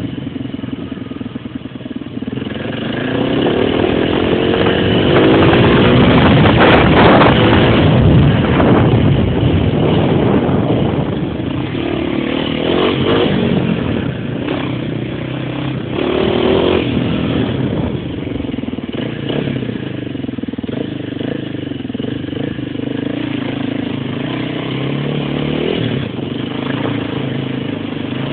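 Small engine of a ridden vehicle revving up about two seconds in, loudest a few seconds later, then running on with its pitch rising and falling as it is ridden over snow.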